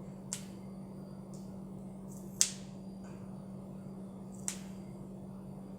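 Three short, sharp clicks or taps, the middle one the loudest, over a steady low hum.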